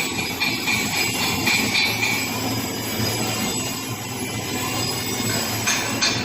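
Electric welding arc running steadily as a bead is laid with a weaving motion: a continuous buzzing hiss with a low hum and a thin high whine.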